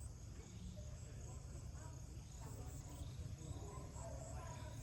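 Insects trilling steadily over a low, constant rumble.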